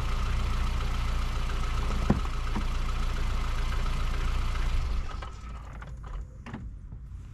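Car engine running and spinning a jacked-up wheel, a steady low hum with a higher steady tone over it, which stops about five seconds in. Then a few light clicks and knocks.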